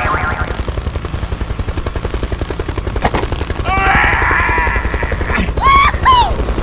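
Fast, even rattling pulse, about ten a second, like a cartoon vehicle engine sound effect. Squeaky voice-like chirps come near the middle and two falling swoops near the end.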